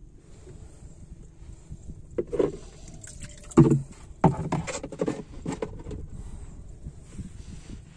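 A run of hard knocks and thumps on a small wooden fishing boat, bunched in the middle, the loudest two about a second apart, over a low steady rumble.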